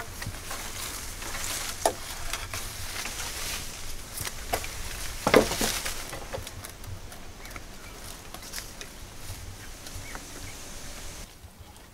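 Leaves, twigs and dry grass rustling and crackling, with scattered snaps, as someone climbs through tree branches hauling a bundle of dry grass. The loudest crackle comes about five seconds in.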